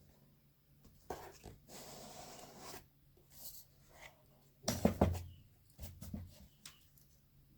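Cardboard and craft materials handled on a work surface: small clicks and rustles, a rasping stretch lasting about a second near the two-second mark, and a low thud with knocks about five seconds in, the loudest sound.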